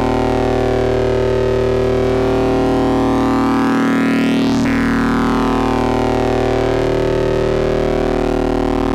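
Modular synthesizer patch of Rossum Trident oscillators, wave-spliced through a Klavis Mixwitch and run through a TG4 distortion, playing a sustained drone. Its overtones sweep slowly up and back down, with one sweep peaking about halfway through.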